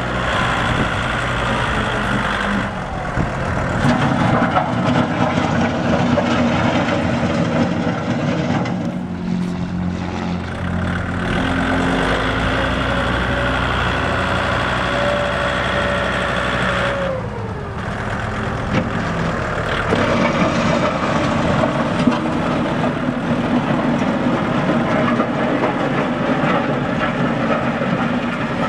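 1991 Kubota L4850 tractor's four-cylinder diesel engine running as the tractor is driven around. The engine note changes several times, and a higher whine drops away about two-thirds of the way through.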